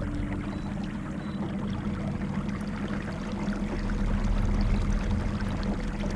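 Small fishing boat under way: a motor running with a steady hum, with water rushing and splashing along the hull.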